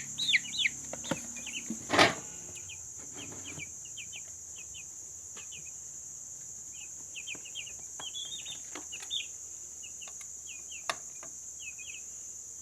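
Eight-day-old chicks peeping: a quick run of falling peeps at the start, then scattered fainter peeps. A sharp knock about two seconds in is the loudest sound, over a steady high-pitched insect drone.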